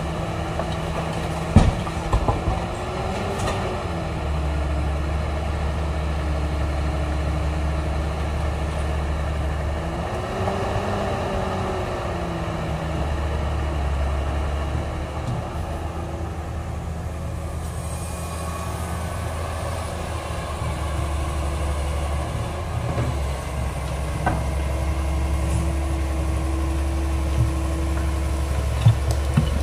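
Hydraulic excavator's diesel engine running under varying load, its note swelling and falling back as the hydraulics swing the boom and bucket. A few sharp knocks about two seconds in, as the bucket dumps into the steel truck body, and a couple more near the end.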